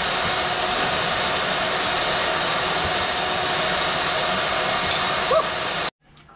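Vacuum cleaner running steadily with a loud rushing noise and a faint hum, stopping abruptly near the end.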